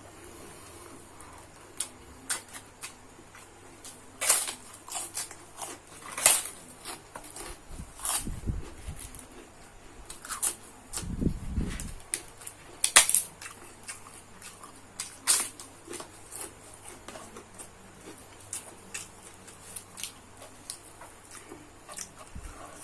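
Close-up eating sounds of a person eating fried rice: chewing and mouth noises with many scattered sharp clicks, a few of them loud, and a couple of short low thumps.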